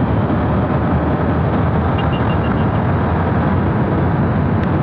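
Steady rush of wind over the microphone mixed with road and engine noise from a motorcycle cruising at highway speed.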